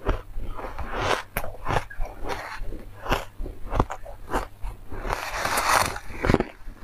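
Refrozen white ice being bitten and chewed close to the microphone, with a metal spoon digging into it in a plastic tub: a quick, irregular run of sharp crunches, with a longer rough crunching stretch about five seconds in.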